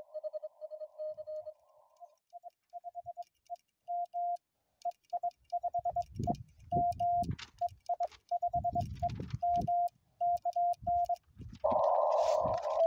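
Morse code (CW) tones at a steady pitch, keyed in dots and dashes, from a Xiegu G90 HF transceiver during an amateur radio CW contact. The signal fades and comes back, with low rumbles under the later part and a loud burst of hiss near the end.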